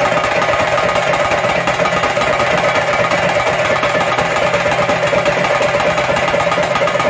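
Chenda drums beaten in a fast, unbroken roll for a theyyam. The rapid strokes run together into a continuous rattle, with a steady ringing tone held over them.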